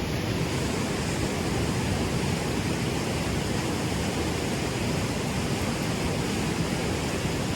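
Small waterfall on a clear mountain stream, water rushing in a steady, even roar.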